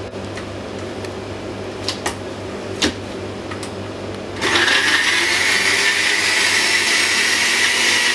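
A few light clicks, then about halfway through a countertop blender switches on and runs steadily at full speed, puréeing chunks of mango with lemon juice into a vinaigrette.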